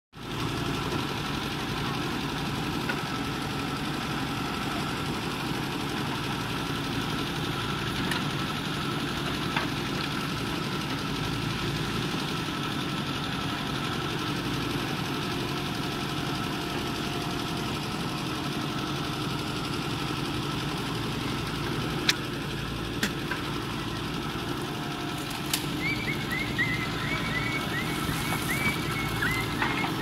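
JCB 3DX backhoe loader's diesel engine running steadily as the backhoe digs, with a few sharp knocks and a run of short, high squeaks near the end.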